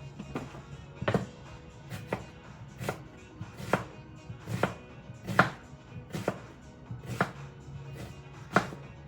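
Knife chopping a red onion on a cutting board, single strokes at a steady pace of about one a second.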